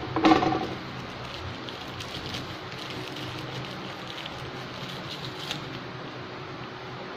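Clear plastic wrapping crinkling as a small tripod part is unwrapped by hand, loudest in a burst about a third of a second in, then faint scattered crackles. A steady electric fan hum runs underneath.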